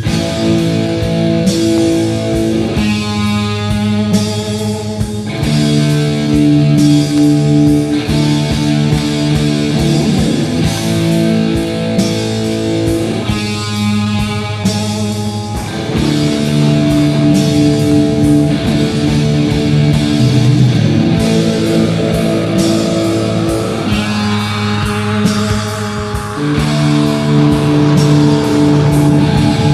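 Instrumental rock music: electric guitar playing chords and riffs over drum kit and bass, in a steady beat.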